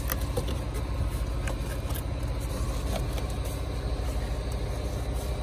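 An engine idling: a steady, low, evenly pulsing rumble. Faint clicks and scrapes of a plastic-framed cabin pollen filter being pushed into its housing come and go over it.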